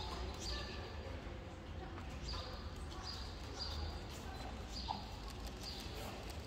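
Short high chirps repeating about every half second to a second, over a steady low hum.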